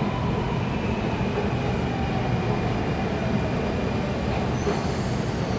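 Singapore MRT Circle Line train approaching the platform behind the glass screen doors: a steady rumble, with a high whine coming in near the end as it pulls into the station.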